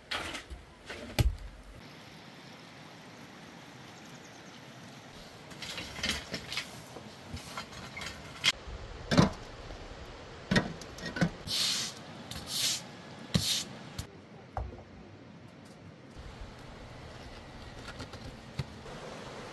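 Scattered knocks, clatters and scraping from manual building work with hand tools, rubble and concrete blocks, with a few short hissing scrapes a little past halfway.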